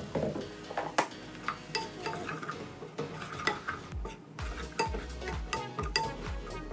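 Metal spoon stirring and scraping in a stainless steel saucepan, clinking repeatedly against the sides and bottom. Flour is being worked into butter and onions for a gravy.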